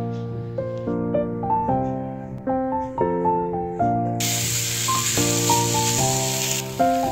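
Keyboard music playing a light melody. About four seconds in, a loud hiss starts over it, drops sharply to a fainter hiss about two and a half seconds later: mawa sizzling as it is scraped into the hot frying pan.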